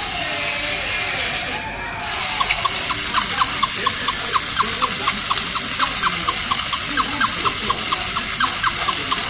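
Battery-operated tin toy puppy dog running, its mechanism making rhythmic clicks about three or four times a second that begin about two seconds in, over a steady high hiss.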